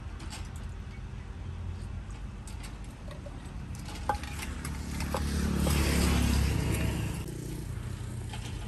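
Steady low traffic rumble from a road, with a motor vehicle passing close by midway, swelling up and fading away over about two seconds. A single sharp click about four seconds in.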